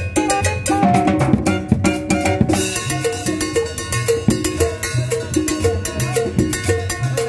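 Live band playing Latin dance music with drum kit and upright bass: a steady rhythm over a walking bass line, with a run of quick drum strokes between about one and two and a half seconds in.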